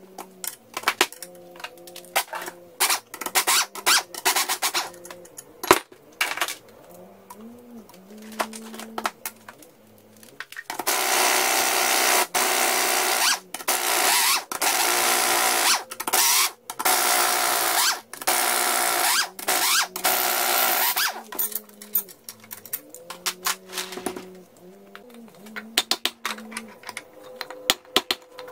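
Pneumatic impact wrench running in a string of bursts of a second or two each, from about eleven to twenty-one seconds in, rattling loose the cylinder head fasteners on a two-stroke jet ski engine. Before and after, sockets and tools clink against metal.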